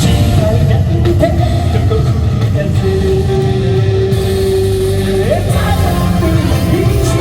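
Live rock band and singer playing loud, with one long held note in the middle that slides up at its end.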